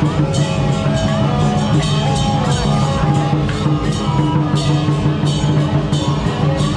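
Loud music with a steady drum-kit beat under a held melody, played over a truck's loudspeakers.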